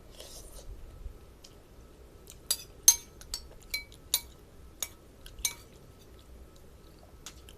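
Eating utensils clinking against a dish: a string of sharp, briefly ringing clinks through the middle.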